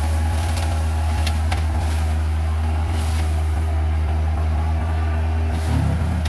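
Kubota excavator's diesel engine running steadily under work, with a few short cracks and a brief surge near the end.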